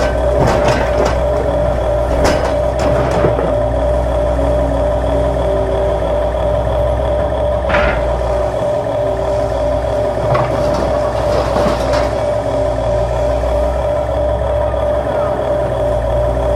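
Electric motors of radio-controlled toy excavators whining steadily as one excavator's arm lifts a tipped-over Huina excavator back onto its tracks, with the pitch shifting in short spells and scattered plastic clicks and knocks.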